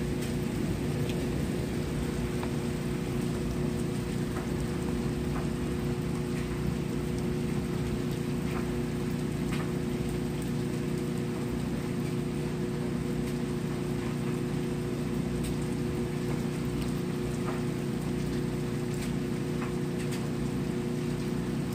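Steady rain falling, with scattered individual drops ticking over a steady low hum.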